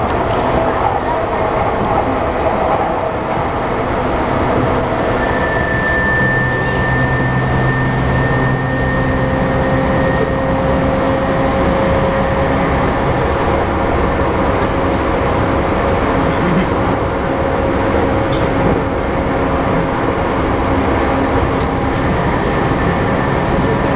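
JR East E235 series 1000 electric train running at speed, heard inside the passenger car: a steady rumble of wheels on rail, with the whine of its Mitsubishi full-SiC VVVF inverter-driven traction motors. One motor tone rises slowly in pitch through the second half.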